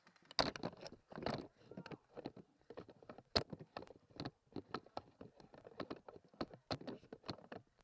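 Footsteps and the knocking and rattling of a carried airsoft rifle and gear, heard through a camera mounted on the gun: an uneven run of sharp clicks and knocks, a few a second.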